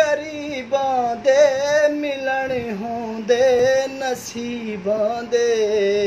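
A man singing unaccompanied in Saraiki folk style, holding long notes whose pitch bends and wavers.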